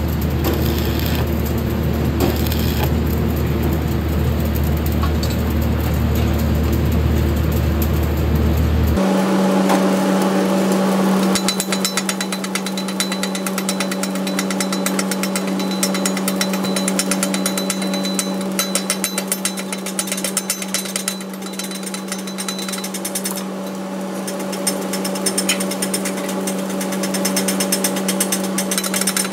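Stick-welding arc crackling and hissing over a low electrical hum. About nine seconds in, the sound cuts abruptly to fast, continuous metal-on-metal tapping of a chipping hammer knocking slag off the weld bead, over a steady hum.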